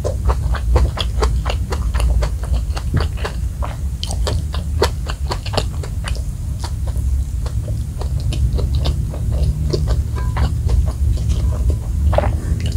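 Close-miked chewing of spicy fried rice and fried chicken, with many small wet mouth clicks and smacks, irregular and dense, over a steady low rumble.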